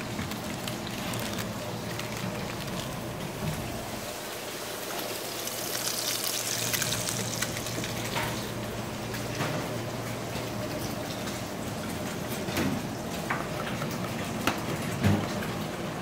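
Steady watery hiss of a working kitchen with a low hum, growing louder and brighter about six seconds in. A few sharp clinks of utensils near the end.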